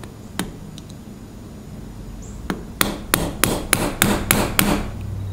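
Yellow-faced plastic mallet tapping a pin punch to drive the rebound-lever pin out of a Colt Agent revolver's alloy frame, with light blows. One tap near the start, another a little past halfway, then a quick run of about nine taps at roughly four a second.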